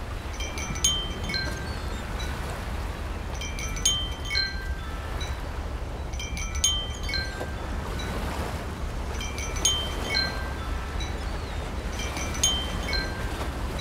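Wind chimes tinkling in short clusters of several ringing notes, about every three seconds, over a steady low rumble.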